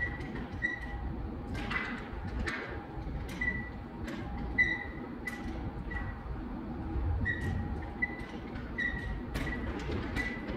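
Room sound of a large indoor climbing hall: short high chirps or squeaks repeating about once a second, scattered sharp clicks, and a steady low rumble.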